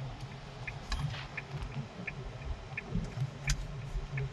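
Low rumble of a car heard from inside the cabin, with a turn-signal indicator clicking steadily about every 0.7 seconds and a couple of sharper clicks.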